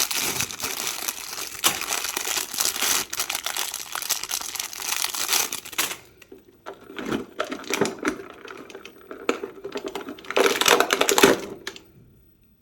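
Packaging crinkling and rustling as it is handled and unwrapped: about six seconds of dense crinkling, then shorter bursts with a louder one near the end, stopping just before the end.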